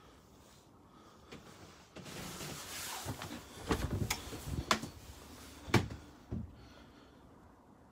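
A caravan's wooden interior doors being handled: a short rustle, then several sharp knocks and clicks, the loudest about six seconds in.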